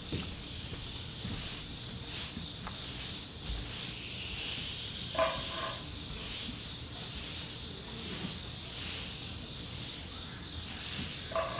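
Insects trilling steadily in a continuous high buzz, with a faint regular pulsing. A brief short sound comes about five seconds in and again near the end.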